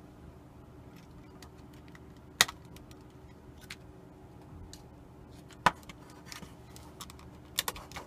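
Small hard clicks and taps of plastic parts and hand tools being handled while taking apart an alarm clock, with two sharper knocks about two and a half and five and a half seconds in.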